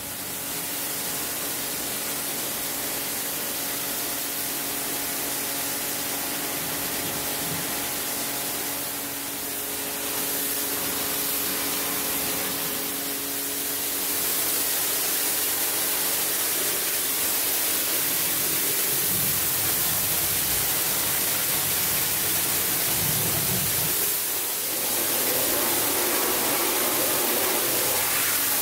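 Pressure washer spraying water onto a car's soapy bodywork: a steady hiss that gets a little louder about halfway through.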